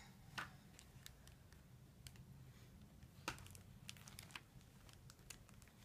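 Near silence with faint, scattered clicks and soft rustles of a picture book being handled by a small child.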